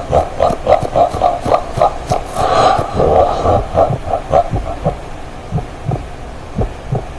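A pounding heartbeat sound effect from a cartoon soundtrack, beating fast at about three beats a second and then fading and slowing. A louder, harsher burst cuts in about two and a half seconds in.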